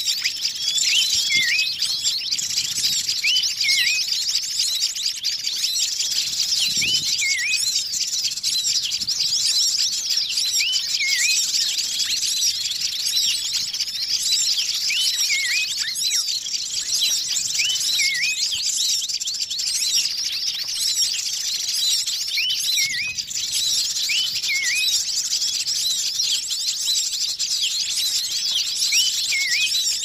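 Bird-lure recording of a noisy mixed chorus of many small wild birds calling at once: a dense, continuous mass of high chirps and twitters, with a lower call that swoops down and back up, recurring every few seconds.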